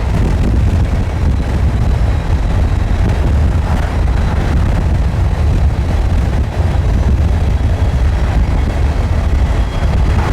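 Loud, steady low rumble of a train rolling past.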